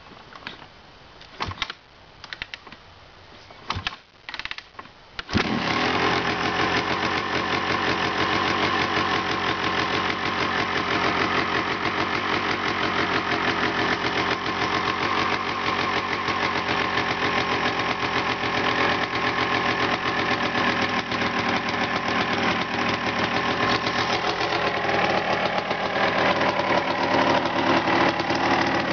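1991 Honda CR250's two-stroke single-cylinder engine being kick-started from cold: a few kicks with short bursts of sound, then it fires about five seconds in and keeps running steadily.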